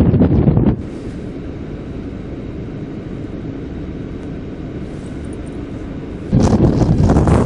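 Strong gusty wind buffeting the microphone with a loud low rumble. It drops abruptly to a steadier, quieter rush of wind under a second in, and the loud buffeting returns just as suddenly near the end.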